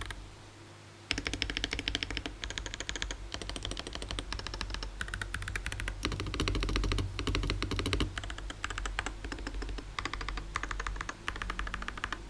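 Fast typing on a mechanical keyboard fitted with Hall-effect magnetic linear switches. The clatter of keystrokes comes in several bursts and starts about a second in.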